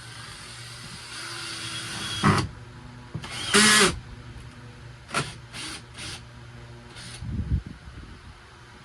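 Power drill running in short bursts: one longer whirring run with a pitched motor whine, then several quick blips and a low thump near the end.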